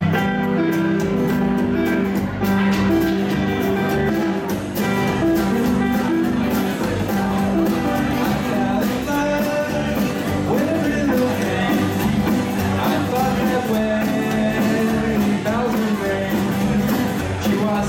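Rockabilly band playing live: electric guitar, acoustic guitar, upright double bass and drums in a steady rhythm, with a man singing.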